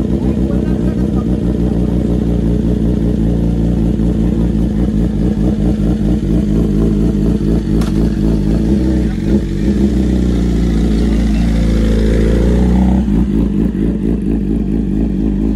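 Sport motorcycle engines idling, with a steady, low, rapid pulsing; the engine sound changes abruptly near the end.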